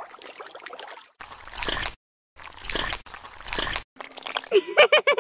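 Edited sound effects of wet mud squelching and water sloshing, in several short separate bursts. Near the end comes a quick run of short pitched tones.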